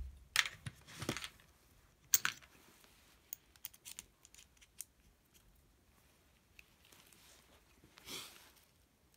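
Scattered light clicks and scrapes of a small precision screwdriver and hands handling the metal tripod foot of a Nikon 70-200mm f/2.8 lens as its screws are undone, with a few louder clicks in the first couple of seconds and a brief rustle near the end.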